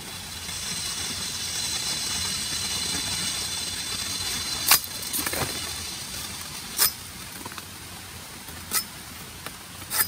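Bolo knife chopping into a short piece of green bamboo: four sharp knocks about two seconds apart, the first the loudest. For the first few seconds a high, shrill, steady buzz runs behind it.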